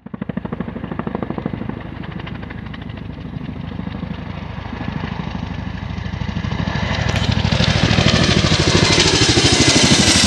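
Boeing CH-47 Chinook tandem-rotor helicopter flying in and passing low overhead, its rotor blades beating in a rapid, even pulse. It grows louder over the last few seconds as it comes close.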